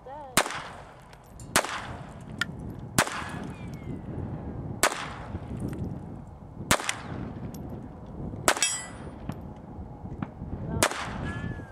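Seven single handgun shots fired at an unhurried pace, one every one to two seconds. At least one is answered by the clang of a bullet striking a steel plate target.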